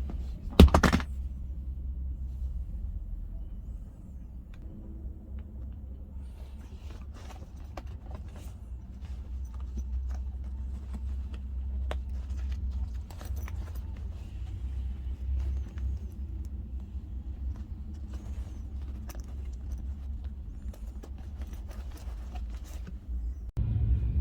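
Steady low rumble of an idling truck engine, with one loud sharp clack just under a second in and scattered light clicks and taps throughout. The rumble grows louder near the end.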